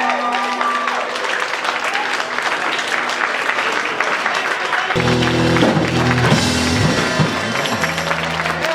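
Crowd applauding and cheering over a lingering held guitar note. About five seconds in, loud bass-heavy rock music comes back in.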